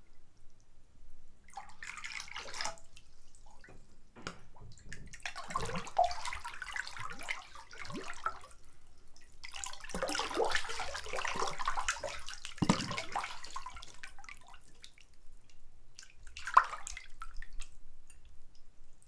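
Bathwater splashing and sloshing as a person sits and shifts in a filled bathtub, in three spells of small splashes, with a single plop near the end.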